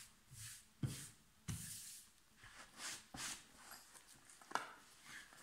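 Hands handling a padded fabric knife bag and its packing paper: soft rustling and brushing, with a sharp knock about a second in and a longer rustle just after.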